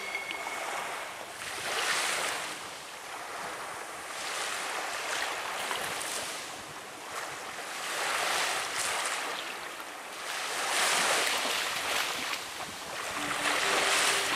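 Sea waves washing onto the shore, each one swelling and falling away every two to three seconds, with some wind.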